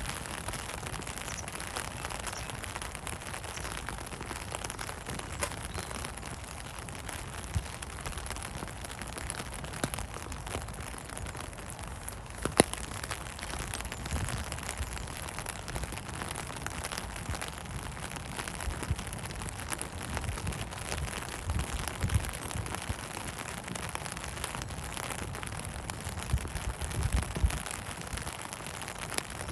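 Steady rain falling, with many small drop ticks and one sharp click a little before halfway.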